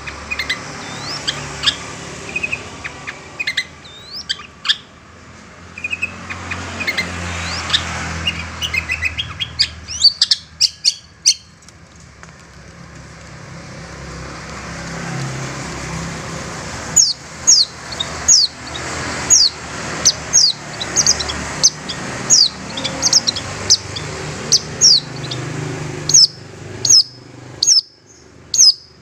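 Long-tailed shrike (cendet) calling: first a varied mix of short chirps and whistled glides, then, from about halfway, a run of sharp, quickly falling notes at about two a second.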